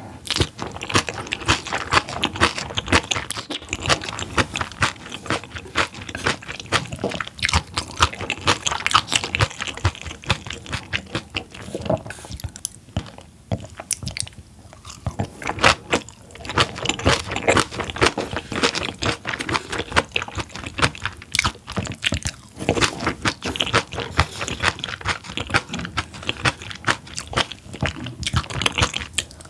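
Close-miked chewing of spicy seasoned raw large-eyed herring salad with vegetables: a steady run of wet smacking and crunchy bites, with a short quieter lull about halfway through.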